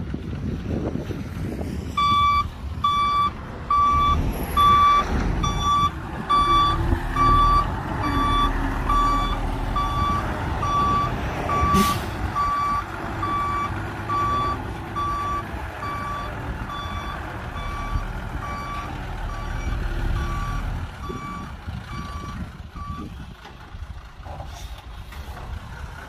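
Dump truck's reversing alarm beeping at an even pace, about one and a half beeps a second, over the low rumble of its diesel engine; the beeping stops near the end, leaving the engine running.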